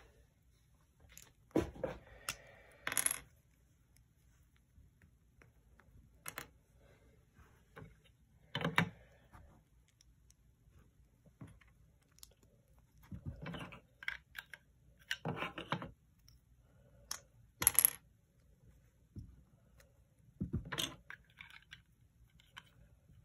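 Plastic LEGO pieces clicking and clattering against each other and the wooden tabletop as they are picked up and pressed together, in short scattered bursts a few seconds apart.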